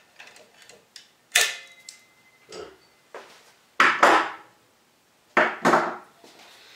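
A series of sharp knocks and clanks from tools and wood being handled at the radial arm saw, about five in all. The first, about a second and a half in, leaves a short metallic ring, and the loudest come around four seconds in and again just before the end.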